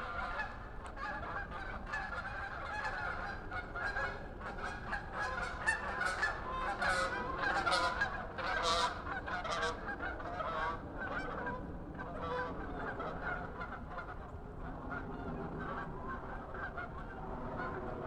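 A flock of geese honking, many calls overlapping without a break, busiest and loudest in the middle.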